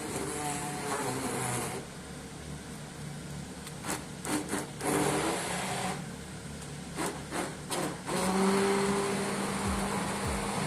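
Electric blender running through a sauce of garlic, fried bread, almonds and cooking water. Midway the motor cuts in and out in several short bursts, and near the end it runs steadily again.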